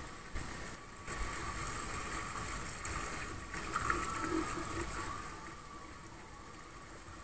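Water running down the open flume of a tube water slide, a steady rushing hiss.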